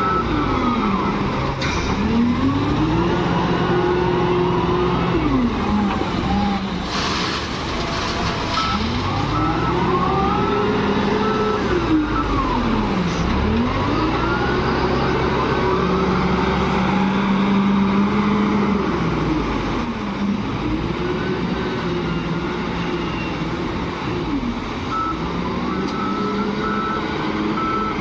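SDLG wheel loader's diesel engine revving up and dying back over and over as it works, loading stone onto a truck. A reversing alarm beeps at times, and a brief hiss comes about seven seconds in.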